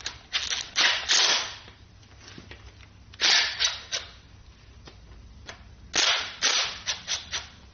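Sharp metallic clicks, knocks and short rasps of tools and engine parts being handled on a Ford 351 Windsor short block during teardown, in three brief clusters with quieter gaps between.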